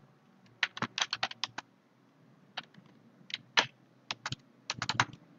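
Computer keyboard typing: short runs of key clicks with gaps between, as a terminal command is typed and Enter is pressed several times.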